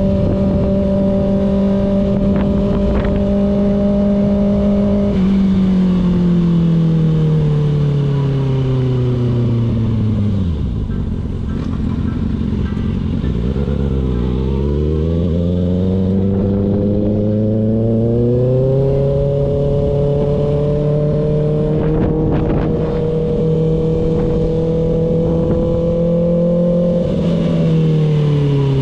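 Kawasaki ZX-6R inline-four engine heard from the rider's seat. It holds steady revs at first, then falls in pitch for several seconds as it comes off the throttle, climbs again and settles into a steady cruise, and falls off once more near the end. Wind rushes over the microphone throughout.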